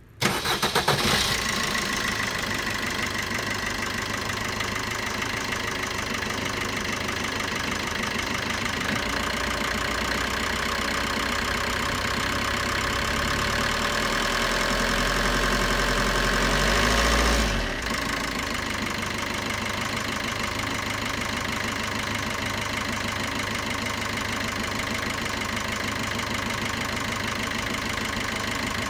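Maruti Suzuki Swift's 1.3 DDiS four-cylinder common-rail diesel engine starting and settling into a steady idle. A low rumble builds under it from about nine seconds in and drops away suddenly at about eighteen seconds.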